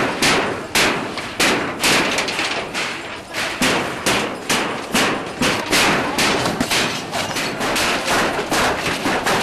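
Rapid, uneven banging of blows on wooden shanty frames and corrugated iron sheets as they are knocked down, about two to three sharp strikes a second.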